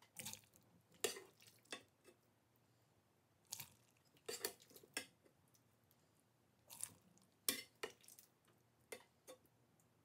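A ladle scooping cooked soup vegetables out of a pot and tipping them into a glass blender jar: scattered short clinks and knocks of the utensil on the pot and jar, mixed with soft wet plops of the vegetables landing.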